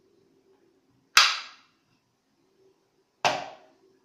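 Two sharp clacks of hard 3D-printed plastic skull pieces knocking together as they are fitted onto the model, about two seconds apart, each ringing off briefly.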